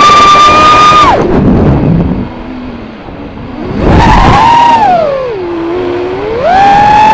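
Motors and propellers of an X210 FPV racing quadcopter, heard close from its onboard camera: a whine that rises and falls with the throttle. It is held high, cuts out about a second in, comes back about four seconds in, sinks low and then climbs again near the end.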